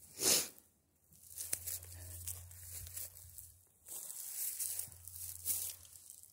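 Rustling, crackling noise in uneven bursts: a short sharp one at the start, then two longer stretches, over a faint steady low hum.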